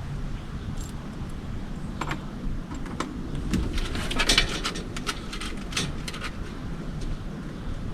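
Clicks, light knocks and rattling of small hardware being handled, with a busy cluster of them in the middle, over a steady low background rumble.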